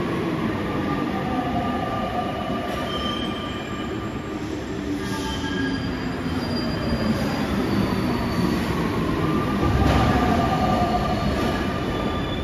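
Paris Métro line 14 rubber-tyred train pulling into the station, with high whining tones that slide gently in pitch over a running rumble. The rumble swells to its loudest about ten seconds in as the train comes alongside the platform.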